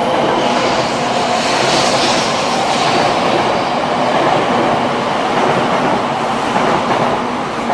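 Tokaido Shinkansen 700 series train pulling out along the platform, its last cars rolling past with steady running noise that begins to fade near the end.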